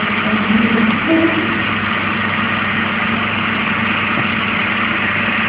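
Egg incubator's fan running with a steady, even hum.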